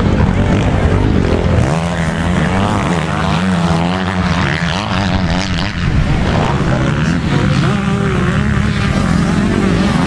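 Several motocross bikes' engines revving hard as they ride up and jump a dirt crest. The overlapping engine notes rise and fall.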